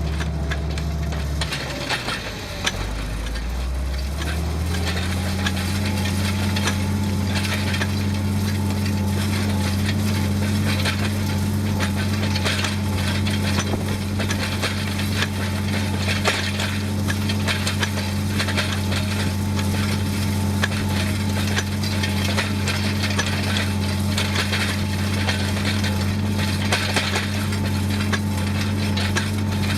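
Massey Ferguson 2705 tractor's diesel engine running, its speed sagging about two seconds in and climbing back to a steady pitch a few seconds later, with a constant light rattling and clattering over it.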